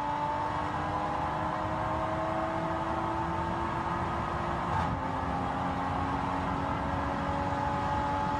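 Toyota GR Supra engine running steadily under light acceleration, its pitch slowly climbing, dropping once about halfway through as if through a gear change, then climbing again.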